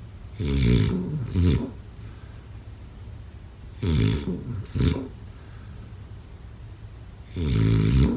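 A person snoring: three rough, rattling snores about three and a half seconds apart, with a short second snort straight after each of the first two.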